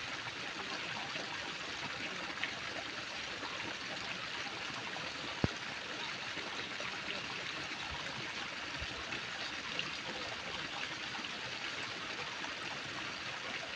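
Steady, even rushing background noise with no clear pitch, and a single sharp click about five and a half seconds in.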